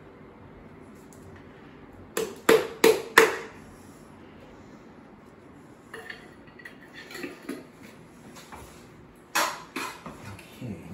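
A jar tapped four times in quick succession against the rim of a glass mixing bowl to shake out the last of the coleslaw dressing, followed by lighter clinks of kitchenware and a couple more knocks.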